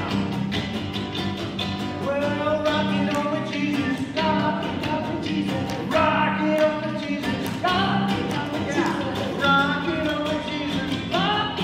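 Acoustic guitar strumming a steady rhythm under an electric guitar playing a lead line with bent, gliding notes.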